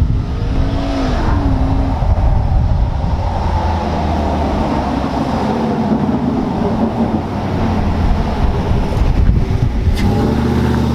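Lifted Chevy Silverado pickup's engine running as the truck drives up the street, with a brief rise and fall in pitch early on and a rising pitch near the end as it pulls close.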